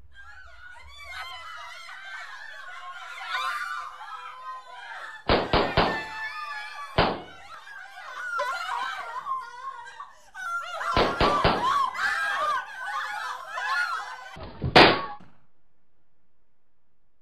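A hubbub of many young voices chattering and laughing, broken by loud gunshots: four quick shots, a single shot a second later, another quick volley of about four, and a last short burst near the end, after which the voices stop abruptly.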